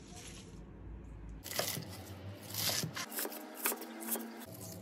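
Irregular crisp clicks and crackling from handling and cutting fresh çiriş (foxtail lily) stalks, starting about a second and a half in after a low steady hum.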